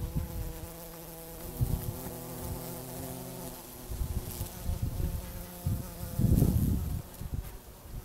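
Bee buzzing in flight close by: a steady hum whose pitch shifts a little as it moves. A low rumble comes in about six seconds in.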